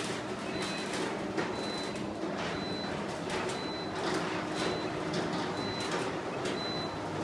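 A one-hour fire-rated steel roller shutter running down under power, a steady mechanical rolling noise with scattered clacks from the slats. A short high beep repeats about once a second throughout.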